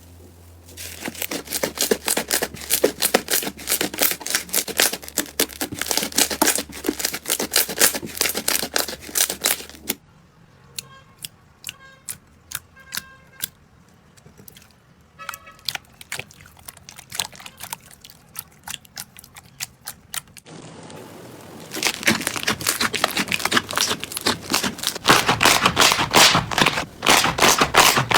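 Slime being squeezed and pressed by hand, giving dense, rapid sticky crackling and popping clicks. The crackling goes quieter and sparser for about ten seconds in the middle, then comes back loud near the end.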